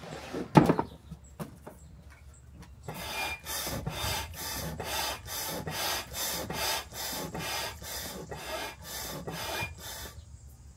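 Hand pump in deflate mode drawing air out of an inflatable paddle board: quick, even whooshing strokes, about three a second, from about three seconds in until near the end. A single thump comes just before, about half a second in.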